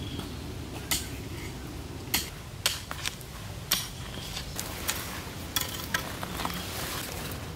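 A shovel digging into dirt: a string of irregular sharp scrapes and knocks as the blade cuts into the soil and grates on stones, with dirt being scooped and dropped.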